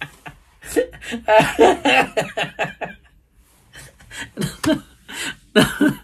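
A man laughing hard in repeated bursts, with a brief lull about halfway through before he starts laughing again.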